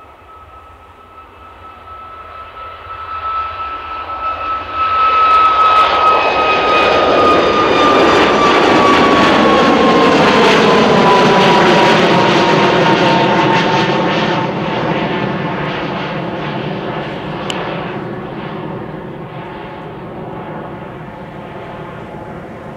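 Ryanair Boeing 737 MAX 8-200 departing, its CFM LEAP-1B jet engines at takeoff power passing by. The jet noise builds up loud, with a high fan whine that drops in pitch as the aircraft goes past, then slowly fades away.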